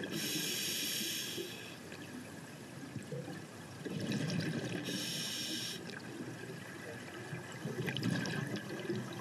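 Scuba regulator breathing underwater: a long hiss of exhaled bubbles at the start and a shorter one about five seconds in, with low bubbling and gurgling between.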